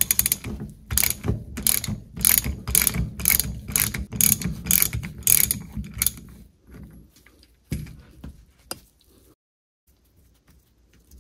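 Small hand socket ratchet clicking back and forth as it spins the preload nut off a Mercruiser outdrive upper-unit gear shaft, in quick strokes of about three a second. The clicking stops about six seconds in, leaving a few light knocks.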